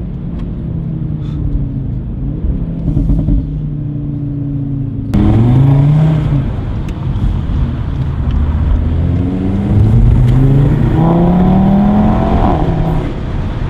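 Audi RS3 8V's turbocharged 2.5-litre five-cylinder engine accelerating hard. Its pitch climbs through several pulls and drops back between them, with a few sharp exhaust pops. About five seconds in, the sound cuts abruptly to a clearer recording.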